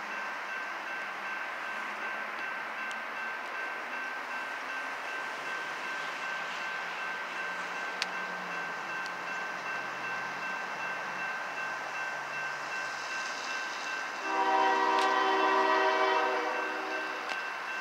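Grade-crossing warning bell ringing steadily as a freight train approaches. About fourteen seconds in, the lead locomotive, a GE ES44AC, sounds its air horn in one long blast of about three seconds.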